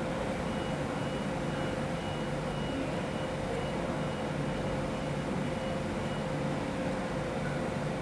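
Steady hum and whir of electric trains standing at a station platform, their cooling fans and air-conditioning running, with a faint high tone pulsing a few times a second through most of it.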